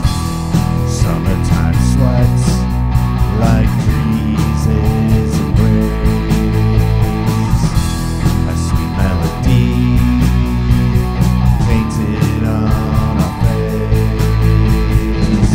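Instrumental rock music, guitar-led, with a steady drum beat.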